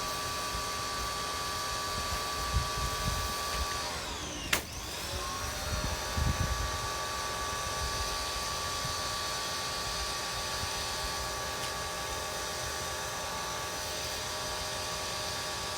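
Electric pressure washer's motor whining steadily while it sprays soap through a foam cannon. About four seconds in the motor winds down, there is a click, and it spins back up as the trigger is released and pulled again.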